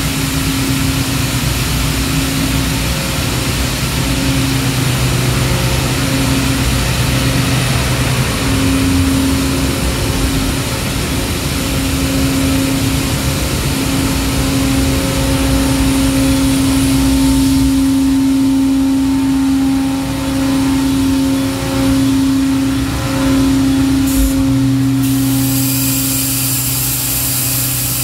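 Large hydraulic plastic injection molding machine running under power: a steady loud machine hum with a droning tone. A high hiss drops away about eighteen seconds in and cuts back in near twenty-five seconds.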